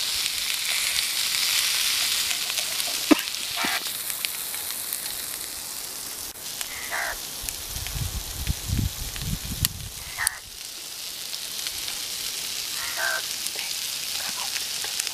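Catfish pieces sizzling in oil on a flat iron griddle over a wood fire, a steady hiss that is loudest in the first few seconds and then eases. There is a single sharp tap about three seconds in.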